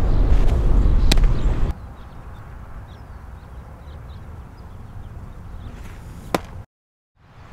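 A pitched baseball popping into a catcher's leather mitt twice, first a changeup about a second in and then a fastball near the end, each a single sharp pop. The first pop comes over heavy wind rumble on the microphone.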